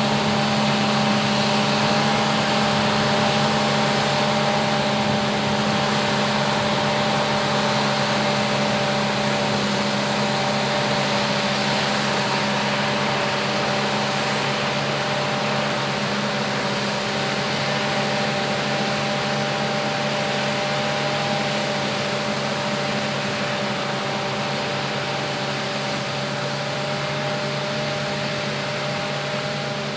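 New Holland FR9060 self-propelled forage harvester chopping maize with a Kemper 460 header: a steady mechanical whine over a broad rushing noise. It grows slowly fainter toward the end.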